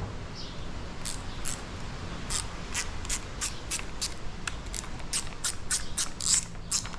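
Sharp metallic tool clicks from a 5mm Allen tool working the bolts of a quick-twist throttle clamp on a dirt bike's handlebar, a couple at first and then a steady run of about three a second.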